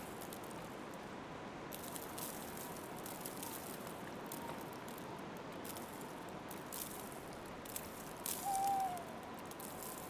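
Soft, steady outdoor night ambience hiss with a few faint crunches scattered through it. Near the end, one short falling owl call, the loudest sound.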